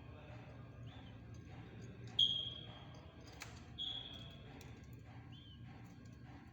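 Young dove chick still giving high, thin baby peeps: a couple of short arched chirps and two longer level piping whistles, the louder one about two seconds in. A single sharp click sounds between the two whistles.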